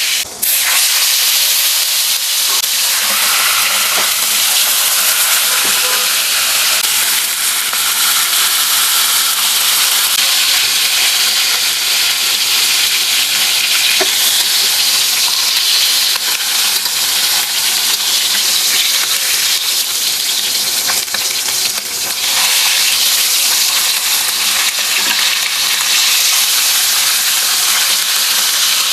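Food frying in hot oil in a pan: a steady, loud sizzle with dense crackling.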